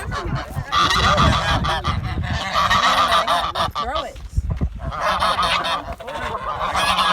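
A flock of geese honking, many calls overlapping at once, with a brief lull about four seconds in.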